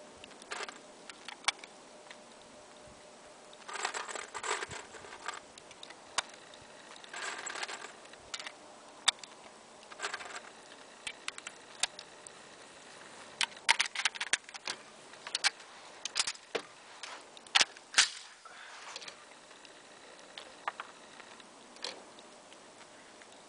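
Scattered sharp clicks and clacks of a scoped rifle being handled on a shooting bench, with two stretches of rustling in between.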